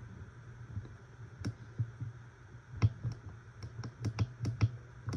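Keypad buttons on a Jensen JEP-750 emergency weather radio clicking as they are pressed, about a dozen irregular presses while stepping through the radio's setup.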